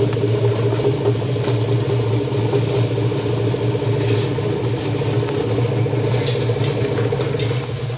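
Shallot washing and peeling machine running: a steady motor hum with light scattered clatter, dropping slightly in level just before the end.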